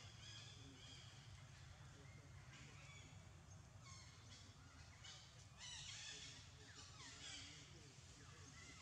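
Faint, high animal calls over a quiet low hum. A few short calls fall in pitch, the clearest just past the middle and another about a second and a half later.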